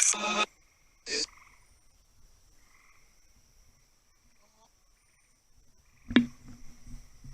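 Frogs croaking faintly in a soft, pulsing chorus under a steady high-pitched tone. There are short loud bursts at the very start and about a second in, and a sharp knock about six seconds in followed by low rumbling.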